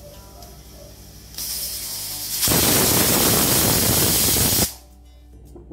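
Stovetop pressure cooker whistling: steam starts hissing about a second and a half in, then blasts out loudly for about two seconds and cuts off suddenly. It is the one whistle that signals the sago inside is cooked.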